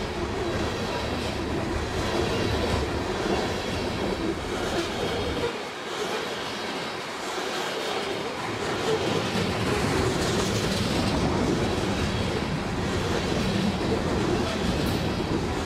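Coal hopper cars of a freight train rolling steadily past, their steel wheels rumbling and clicking over the rail joints.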